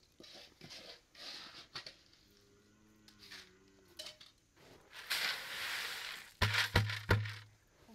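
Rustling, crackling handling noises, with a faint voice about two seconds in, a burst of hiss past the middle and a few sharp knocks near the end.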